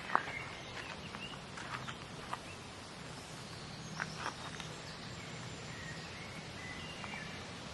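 Woodland ambience: a steady background hush with a faint low hum, broken by scattered short bird chirps and a few brief high whistled bird calls.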